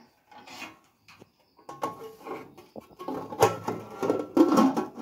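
Wooden spoon knocking and scraping in an aluminium cooking pot, then the aluminium lid clattering onto the pot with a brief metallic ring.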